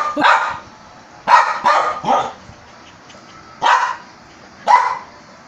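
A small dog barking: about six short, sharp barks in irregular groups, with pauses between them.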